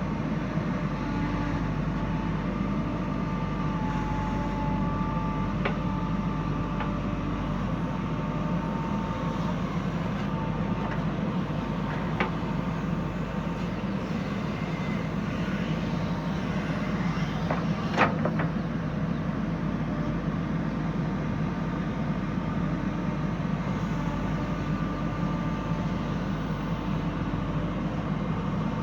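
Diesel engine of a JCB 3DX backhoe loader running steadily while loading soil, with a faint whine over it and a few light clicks. A single sharp knock about eighteen seconds in.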